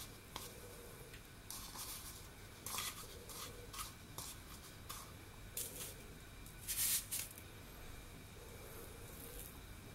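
Soft scratchy rustling as a sticky ball of dough is rolled in granulated caster sugar in a plastic bowl and handled onto parchment paper, with a few brief louder scrapes, the loudest about seven seconds in.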